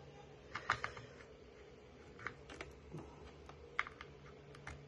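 Scattered small clicks and taps of a charger cable's round metal plug being handled and fitted to a battery pack's 3-pin charging port, over a faint steady hum.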